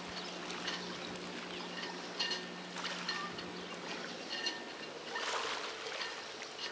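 Marina ambience: water lapping and trickling against the dock pilings, with short high ticks now and then and a steady low hum that stops a little after four seconds in.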